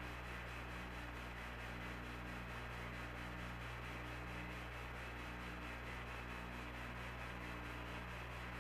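Steady hiss and low hum of an open air-to-ground radio downlink, with a faint low tone that breaks in and out.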